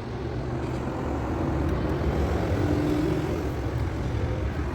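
A vehicle engine running steadily with a low rumble, growing a little louder over the first couple of seconds.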